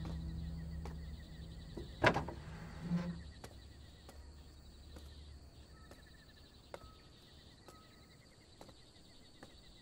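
A wooden door knocks open about two seconds in, followed by a softer thump about a second later, while a low music drone fades away. Faint insect chirping and a few light ticks follow.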